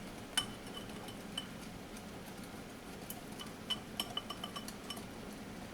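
A wire whisk clinking against a mixing bowl while stirring cornbread batter: scattered light clinks, coming more quickly about four seconds in.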